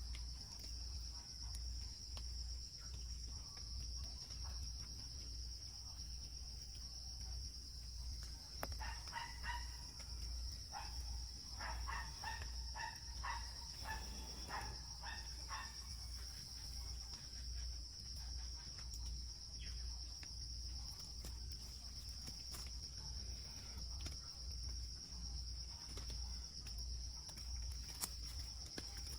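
Insects droning in one steady high-pitched tone, with a run of short, quickly repeated animal calls from about nine to sixteen seconds in.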